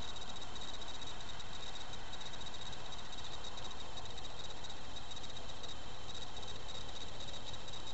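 Insects trilling steadily at one high pitch, fast and unbroken, over a constant hiss.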